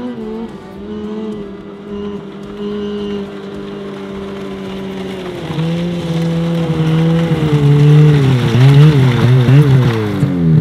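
Snowmobile engine running steadily, then about halfway through it grows louder as the sled approaches, its pitch rising and falling as the throttle is worked.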